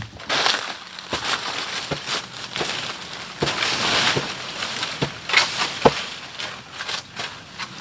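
Crunching and rustling of dry banana leaves and undergrowth as someone steps through and handles the plants, with several sharp snaps scattered through it.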